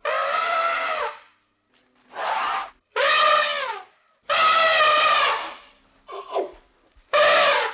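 A series of about six high, trumpet-like animal calls, each lasting under a second or so with short gaps between, several dropping in pitch at the end.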